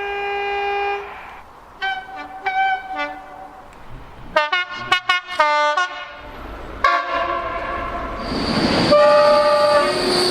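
Train horns sounding in several separate blasts: a held note at the start, a few short toots around two to three seconds in, a fast run of short toots around five seconds in, then longer horn notes over a rising rush of noise near the end.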